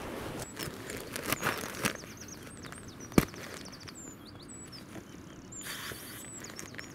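Small birds giving high, thin chirps and quick trills over faint outdoor hiss, with soft knocks and rustles as camping gear is handled. There is one sharp click about three seconds in.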